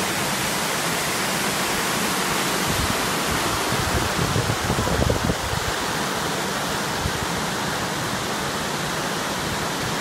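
Steady rushing of a waterfall and the rocky mountain stream below it: a dense, even hiss of falling and tumbling water. Brief low rumbling about four to five seconds in.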